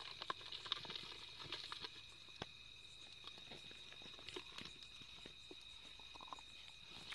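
Faint, scattered clicks and scrapes of a plastic jar and loose gravel as a cobra is tipped out of the jar onto the stones. The clicks are busiest in the first two seconds, over a steady high-pitched two-tone drone.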